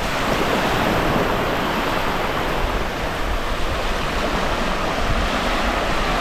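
Sea surf washing onto a sandy beach: a steady rush of small breaking waves.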